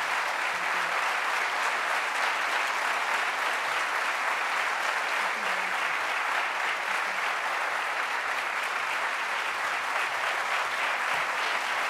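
Audience applauding steadily, a continuous even clapping that does not let up.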